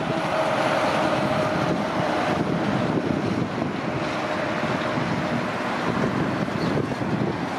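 Road train's diesel engine and tyres running steadily, with wind noise on the microphone.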